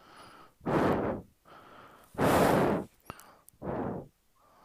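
Three breaths of the person holding the phone, close to its microphone, each lasting under a second, with a small click between the second and third.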